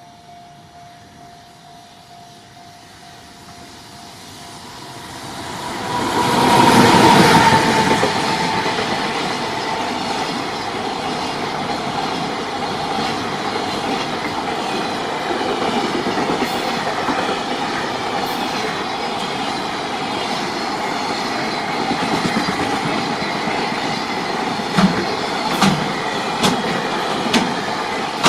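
Freight train hauled by an EF200 electric locomotive passing at speed. The sound swells as it approaches and is loudest about six seconds in as the locomotive goes by. Then comes a long steady rumble and clatter of freight wagons rolling over the rails, with a few sharp clacks near the end.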